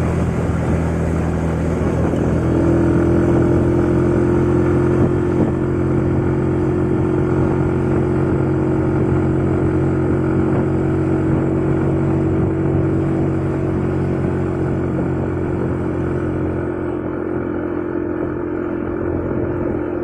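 Suzuki Skywave 125 scooter's single-cylinder engine running hard at steady revs, its pitch held even by the CVT while riding uphill. The high hiss eases somewhat near the end.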